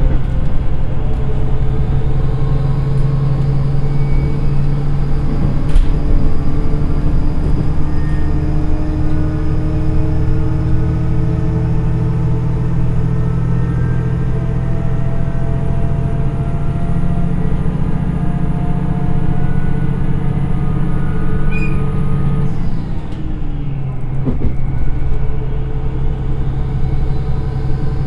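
A JR East KiHa 110 diesel railcar's turbocharged Niigata DMF13HZA engine, heard from inside the passenger car, pulling hard in first direct-drive gear with its note slowly rising as the train gains speed. About 22 seconds in, the pitch drops and the sound briefly dips as the transmission shifts up to second direct gear, then the engine pulls again over the rumble of the running train.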